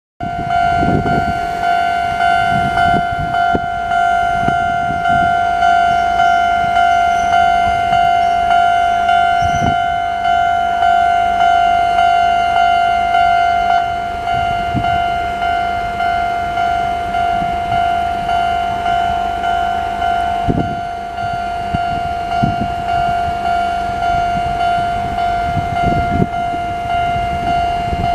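Japanese level-crossing warning bell: the old standard electronic type, sounding a loud ringing tone in a slow, even repeating stroke, each strike fading before the next.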